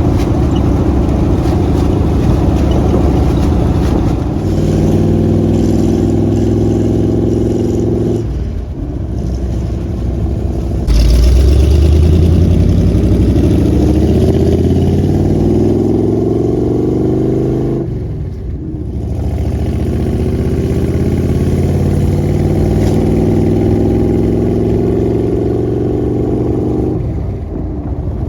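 V8 engine of a 1978 Jeep CJ-5 running through Hedman fenderwell headers and Purple Hornie mufflers, a semi-loud exhaust. It pulls in long runs of slowly rising pitch and drops off briefly twice, about 8 and 18 seconds in. It gets louder about 11 seconds in.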